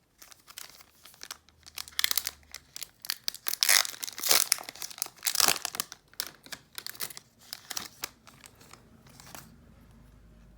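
Foil trading-card booster pack being torn open and crinkled by hand: a run of crackling rustles, loudest about four to five and a half seconds in, thinning out near the end.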